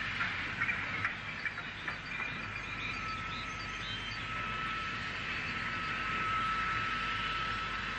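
Steam train running: a steady hiss with a few short knocks in the first two seconds and a faint steady whistle-like tone from about two seconds in.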